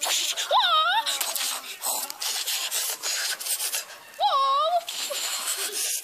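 A child's high-pitched yell, about half a second in and again a little after four seconds, over steady rubbing and scraping as a plush teddy bear's fur brushes against the microphone.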